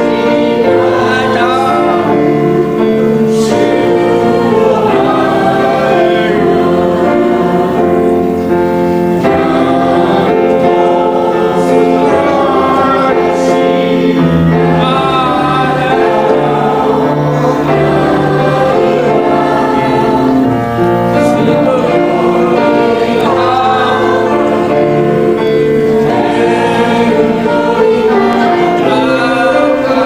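A group of voices singing a Christian worship song together over steady instrumental accompaniment.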